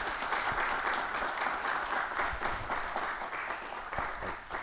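Audience applauding: many hands clapping in a dense, steady patter that begins to fade near the end.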